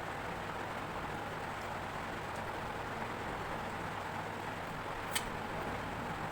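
Steady background hiss with a single short click about five seconds in.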